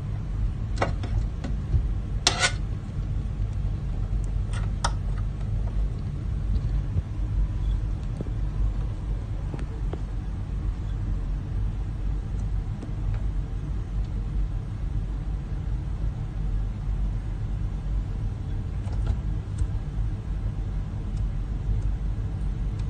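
A steady low rumble, with a few sharp clicks in the first five seconds and two fainter ones near the end as the oscilloscope's buttons and knobs are worked.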